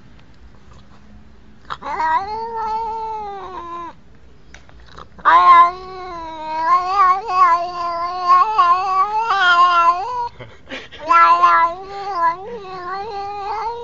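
Domestic cat yowling: three long, drawn-out meows with a wavering pitch, the first starting about two seconds in and the middle one lasting about five seconds.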